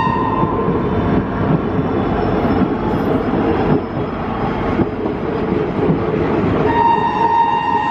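Horn of a WAG-9 electric freight locomotive: one steady single-note blast dies away just after the start, then returns near the end as a second long blast. In between is the rumbling noise of the train running on the rails.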